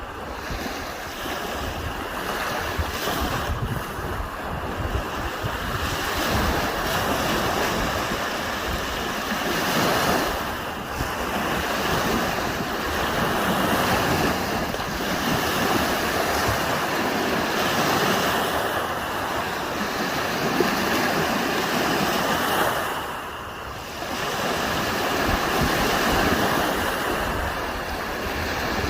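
Gentle waves washing onto a sandy beach: a continuous wash of surf that swells and eases every few seconds. There is some low wind rumble on the microphone.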